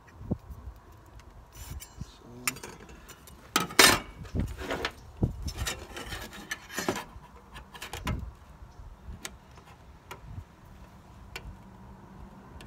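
A steel circular saw blade and metal digital calipers being handled and slid against each other: scattered scrapes, rubs and light clinks, the loudest scrape about four seconds in.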